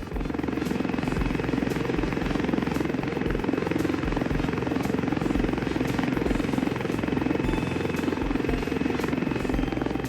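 Helicopter sound effect: steady noise of the rotor and engine.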